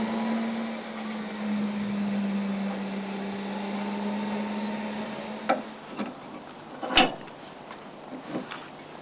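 Warn 9.5 Ti electric winch motor running steadily under load, paying out cable as it lowers the vehicle down a steep step. It stops about five and a half seconds in, followed by a few sharp clicks and one loud clack.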